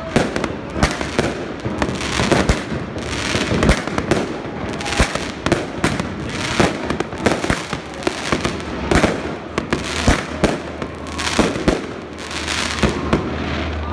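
Fireworks and firecrackers going off all around: a dense, irregular run of loud bangs and crackles, often several a second.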